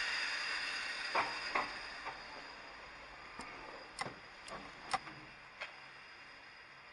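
Large scooter being wheeled over stone paving with its engine off: a rushing rolling noise that fades over the first few seconds, then several sharp clicks and knocks.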